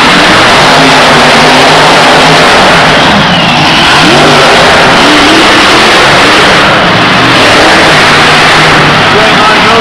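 Several monster trucks' supercharged V8 engines running loud and revving as they drive around the dirt floor, with rising revs about four seconds in and again near the end.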